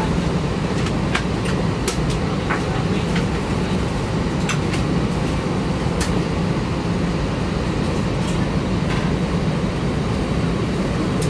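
Steady low hum of an Airbus A321 airliner cabin, with scattered small sharp clicks over it.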